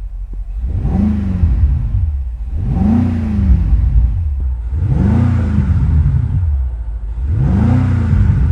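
2025 BMW X6 M Competition's twin-turbo V8 revved four times at roughly two-second intervals, each rev rising and falling back in pitch.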